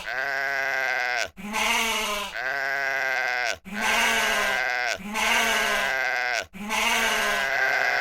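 Sheep bleating over and over: about six long, wavering calls, one right after another.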